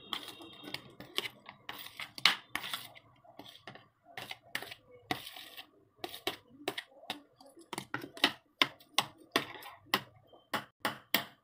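Sharp, irregular clicks and taps of a utensil on plastic dishes as chopped onion, tomato and coriander are scraped from a plastic plate into a bowl of raw eggs. The taps come faster near the end.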